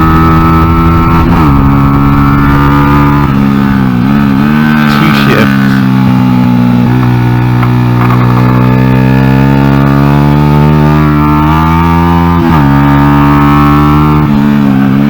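Honda XR100 single-cylinder four-stroke engine in a small track bike, heard from onboard under hard riding. Its pitch drops sharply as the throttle closes about a second in and again near the end, dips briefly around four seconds, then climbs steadily for several seconds.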